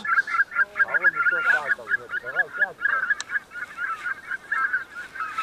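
A flock of greater white-fronted geese calling overhead: many short, high, yelping calls overlapping without a break.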